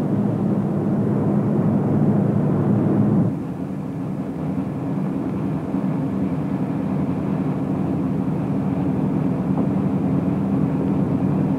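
Naval patrol boat's diesel engines running under way, a steady low drone. It is louder for the first three seconds or so, then drops a little and carries on.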